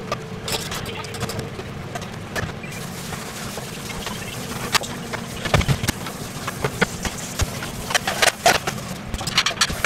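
Home kitchen work sounds: dishes and utensils knocking and clinking, in a cluster about halfway through and again near the end, over a steady low hum.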